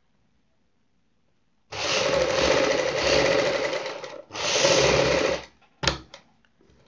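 Domestic sewing machine stitching in two runs, about two seconds and then just over a second with a short break between, starting about two seconds in. A sharp click and a few light ticks follow near the end.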